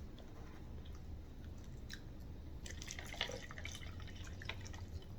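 Quiet eating sounds: scattered short wet clicks and smacks of chewing, over a low steady hum.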